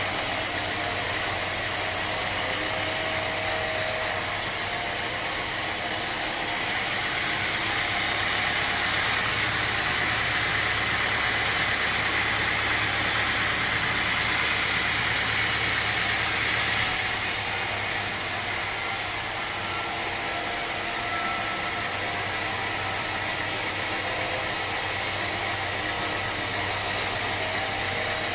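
Sawmill machinery running steadily as a continuous mechanical drone. The sound changes character about six seconds in and changes back about seventeen seconds in.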